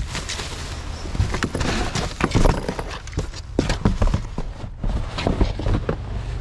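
Rummaging through discarded clothes and clothes hangers in a dumpster: a quick, irregular string of clacks, knocks and rustles as items are pulled about.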